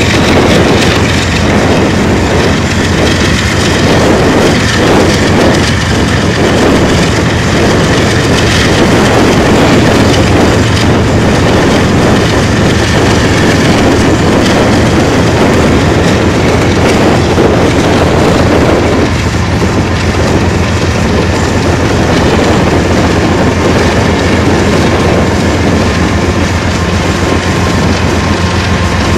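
CN freight train's lead diesel-electric locomotive pulling out under power. Its engine gives a steady drone, mixed with the rumble of the wheels on the rails.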